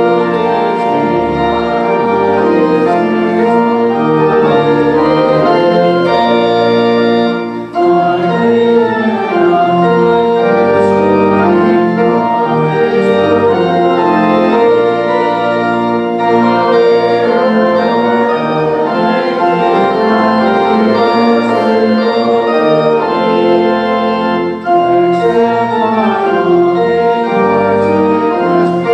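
Pipe organ playing slow, sustained chords, with two brief breaks between phrases, about a third of the way in and again near the end.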